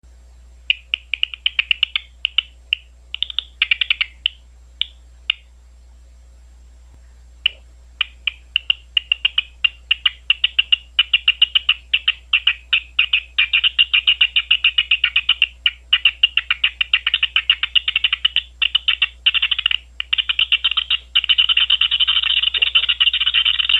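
Big brown bat echolocation calls made audible through a bat detector, heard as trains of rapid clicks. They come sparse and broken at first, stop for about two seconds, then come steadily faster until they nearly run together near the end.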